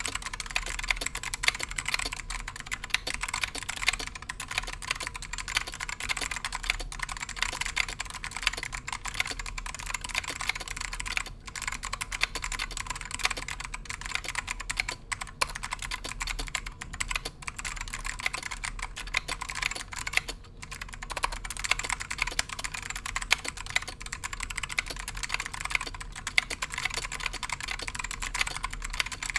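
Continuous typing on a mechanical keyboard with modded, dry-lubed Alps SKCM Black clicky switches, ABS keycaps, a brass plate and a wooden case: a dense stream of sharp clicks, with a few short pauses.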